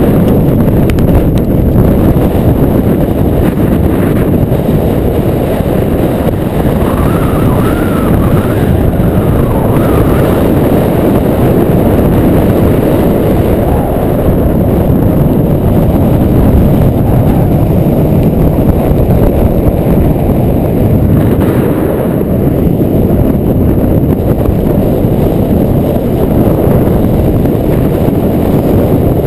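Wind buffeting the microphone, a loud steady low rumble, with a faint wavering high tone for a few seconds around a quarter of the way in.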